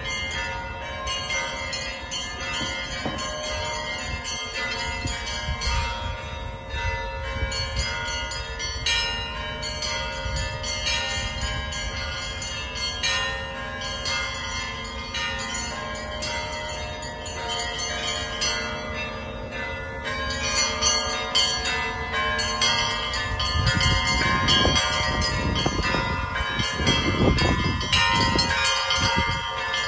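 Russian Orthodox church bells hand-rung by a single bell ringer: many bells of different pitches struck in quick succession, their tones overlapping and ringing on. The peal grows louder about two-thirds of the way through, with deep low strokes near the end.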